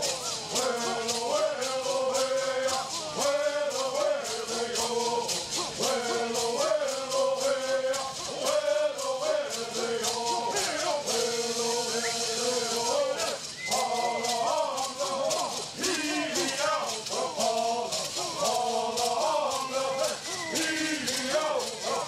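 Southern California bird singing: a group of men's voices sings in unison in short repeated phrases, over a steady, fast shaking of gourd rattles.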